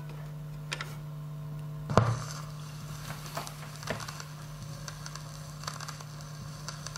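Turntable stylus set down onto a spinning vinyl record, landing with a thump about two seconds in, followed by scattered faint crackles and pops from the lead-in groove over a steady low hum.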